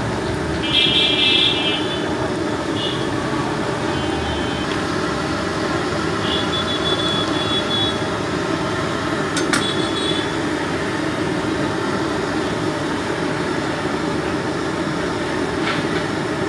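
Jilapi deep-frying in a large wok of hot oil: a steady sizzling hiss. A few short high-pitched beeps cut in, the loudest about a second in, and there is a sharp click a little past halfway.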